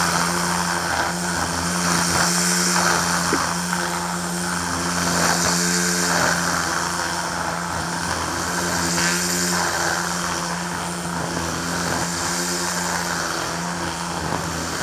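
Ryobi 40V battery string trimmer running at a steady speed, its spinning line cutting through thick, tall centipede grass. The sound swells and eases every few seconds as the head sweeps back and forth through the grass.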